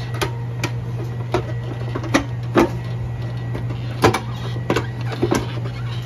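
Electric motor humming steadily and low, with about ten irregular sharp clicks and knocks of parts being handled.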